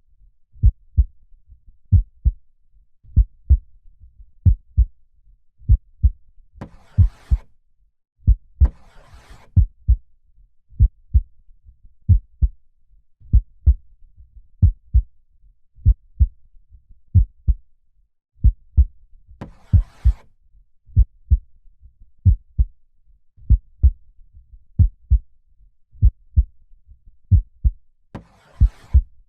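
Heartbeat thumping steadily in deep lub-dub pairs, about one beat a second. Soft breath sounds come in four times: twice around a quarter of the way in, once past the middle and once near the end.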